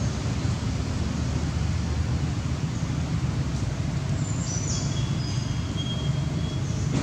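Steady low outdoor rumble, with a few faint high bird chirps, one cluster a little past the middle.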